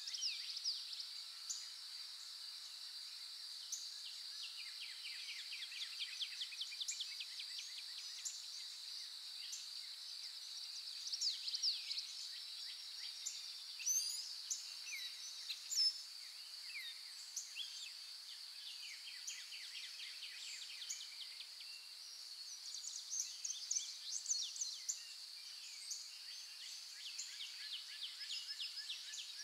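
Outdoor ambience of birds chirping in quick falling notes, over a steady high-pitched drone. A few chirps stand out louder partway through.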